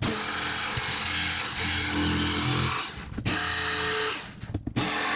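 Bosch corded jigsaw cutting a thin plywood panel, its motor and reciprocating blade running steadily. It breaks off briefly twice, about three seconds in and again near the end.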